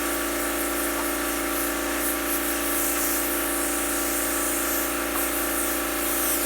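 A small motor running steadily with a hum and a wide hiss, cut off abruptly.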